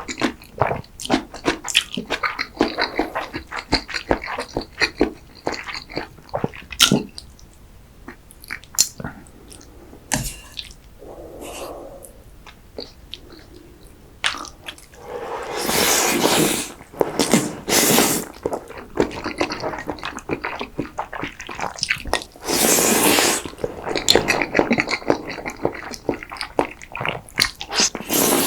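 Close-miked wet chewing and mouth sounds of someone eating cream pasta and cream risotto: many small clicks and smacks. Partway through and again near the end come a few longer, louder noisy sounds of eating.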